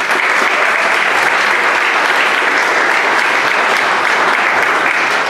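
Audience applauding: dense, steady clapping that breaks out all at once and holds at one loud level.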